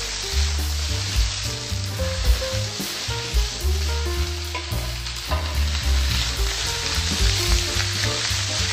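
Green beans and other vegetables sizzling in hot oil in a stainless-steel skillet on a gas burner, tossed and shifted in the pan as they sauté.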